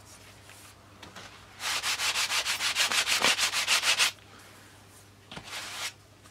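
Sandpaper on a wooden sanding block rubbed back and forth over a thin balsa sheet in quick strokes, about five or six a second, for two or three seconds after a softer start, then stopping. This is a light sanding of a freshly glued balsa joint.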